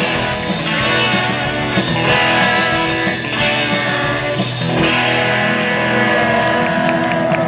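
A live rock band playing loudly: electric guitars over bass guitar and a drum kit.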